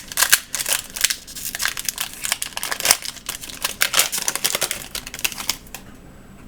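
Wrapper of an Upper Deck Artifacts hockey card pack being torn open and crinkled by hand: a dense run of crackles that stops near the end.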